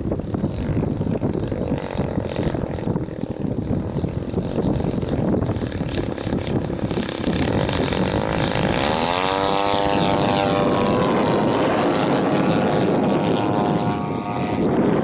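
Wind buffeting the microphone for the first half, then the engine and propeller of a 1/3-scale Piper Super Cub RC plane rise sharply in pitch and get louder about eight seconds in, then hold a steady high drone.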